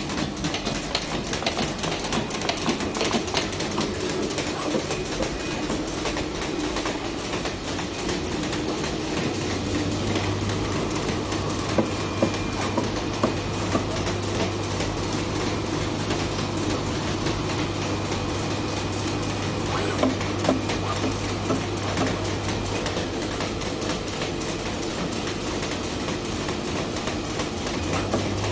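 Flatbed sample-cutting machine running: a steady mechanical clatter of rapid ticks and clicks, with a low steady hum joining about nine seconds in.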